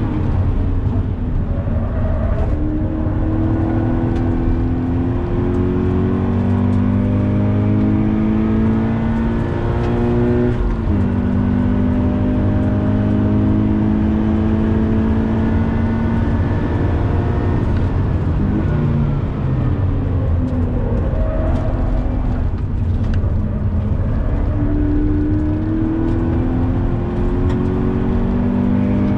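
Sports coupé's flat-four engine pulling hard under full throttle, heard inside the cabin. The note climbs steadily and drops sharply at a gearchange about a third of the way in, dips briefly around two-thirds of the way as the driver lifts, then climbs again, over a constant low road and tyre rumble.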